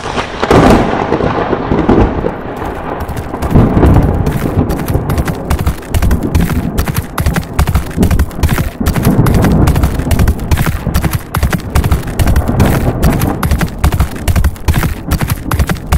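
Dramatic intro sound effects: a deep rumble like thunder opens, then from about four seconds in comes a fast, unbroken run of sharp hits, galloping horse hooves mixed with gunfire-like cracks.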